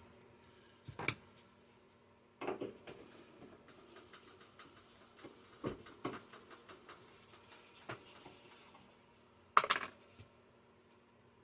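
A microwave oven's sheet-metal case being handled: scraping and light rattling with scattered knocks, a sharp knock about a second in and a louder pair of knocks near the end.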